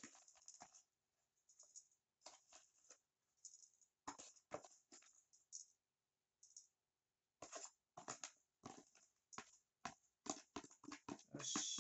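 Small hand trowel scooping potting soil out of a plastic tub into a terracotta pot: faint scrapes and rustles of soil in short, irregular bursts, ending in a longer, louder pour as the tub is tipped over the pot.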